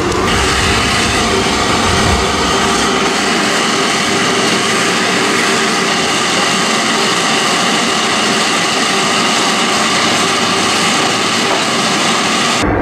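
Gas forge burner and blower running flat out: a loud, steady roar with no hammer blows in it, cutting off abruptly near the end.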